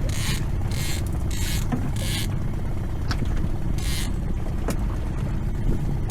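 Small boat's outboard engine running steadily at low revs, with several short bursts of hiss over it.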